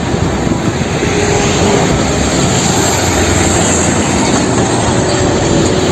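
A heavy fuel tanker truck driving past on a road: a steady, loud rush of engine and tyre noise.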